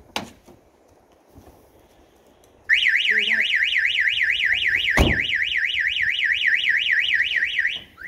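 Starline Solaris car alarm siren set off by a door being opened while the alarm is armed: a loud, fast warbling wail that sweeps up and down about four times a second. It starts about three seconds in and cuts off just before the end as the alarm is disarmed with the remote. There is a click near the start and a single sharp knock midway through the siren.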